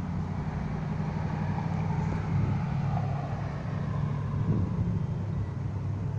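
Steady low engine hum with rushing wind noise over it, the rushing swelling about two to three seconds in.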